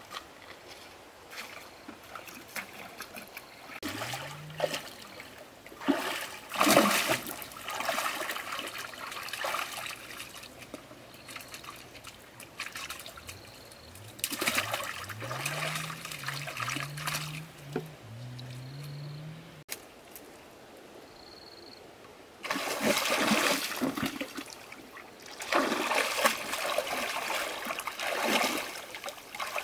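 Water splashing and trickling in bursts of a few seconds each. A low hum rises in pitch several times in the middle.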